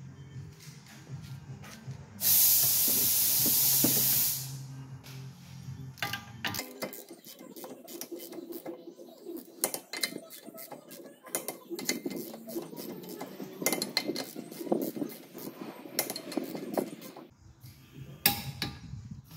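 A loud hiss lasting about two seconds, like a burst of compressed air, then a long run of sharp metallic clicks and clinks as the nuts of the wheel spacers on a Mazda RX-8's front hub are tightened with a wrench.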